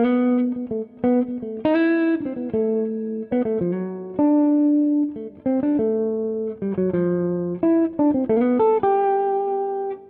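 Background music: a guitar picking a melody, each note plucked and left to ring.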